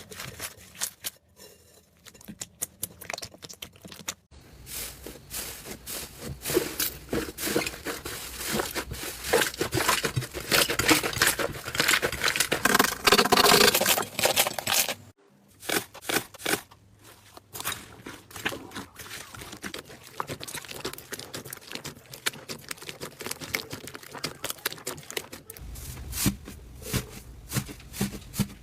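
Slime being squished and stretched, giving dense crackling pops and clicks. The crackling is loudest a few seconds before the middle, breaks off briefly, then goes on more softly.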